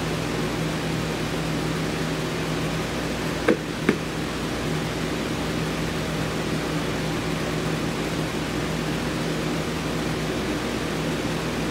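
Steady fan-like mechanical hum, with two short clicks about three and a half seconds in.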